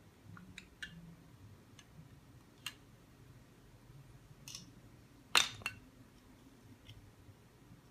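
Plastic Lego pieces clicking and clacking as they are handled, in scattered light clicks with a louder double clack about five and a half seconds in.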